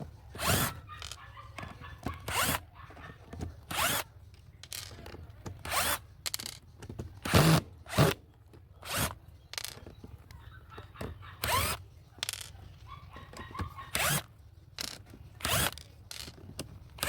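Bosch GDR 120-Li 12V cordless impact driver driving short screws with a PH2 Phillips bit, in many brief bursts of well under a second each, some with a short rising whine of the motor.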